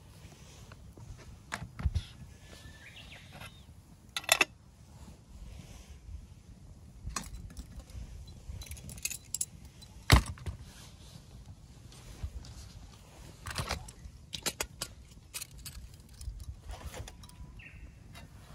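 Wood fire of burning logs crackling, with scattered sharp pops at irregular intervals, the loudest about ten seconds in, over a low steady rumble.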